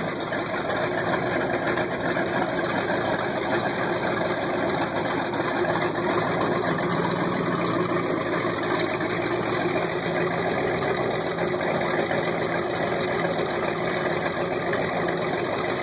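Twin Mercruiser 454 big-block Chevy marine engines idling steadily with their transom exhausts, run on the trailer on hose-fed cooling water, on freshly set-up carburetors and fuel pumps.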